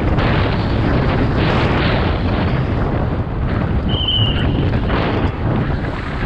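Wind rushing over the camera microphone as a downhill mountain bike runs at speed over dirt and rocks, with tyre roar and the bike rattling. A short high squeal about four seconds in.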